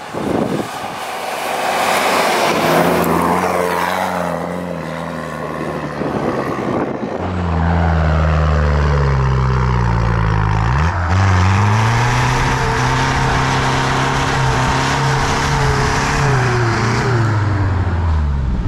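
Mitsubishi Pajero engine revving hard under load as it tries to climb through deep snow, tyres spinning and throwing snow. The revs drop sharply and pick up again about halfway through, hold high, and fall away near the end.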